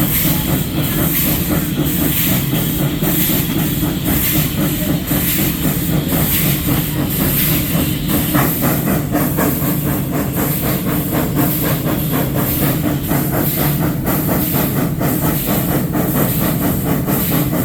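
Arcade & Attica No. 18, a 2-8-0 steam locomotive, running with a steady rhythm of exhaust beats over a constant steam hiss, its wheels clattering on the rails.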